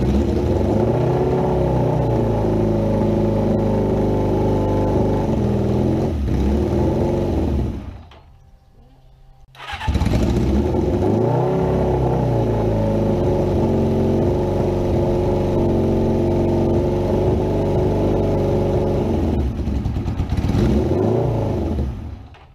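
Suzuki GS550 air-cooled inline-four engine running with the revs rising and falling. It stops about eight seconds in, is restarted a second and a half later, and runs on until it stops near the end. It is firing on all four cylinders now that a fouled spark plug has been replaced with a spare.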